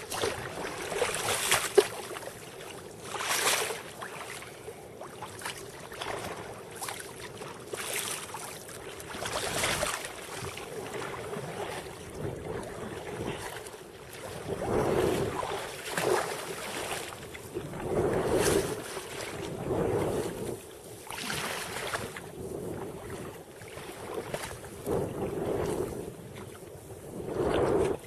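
Choppy sea water washing and splashing against the bow of a sea kayak in uneven surges every second or two, with wind buffeting the microphone.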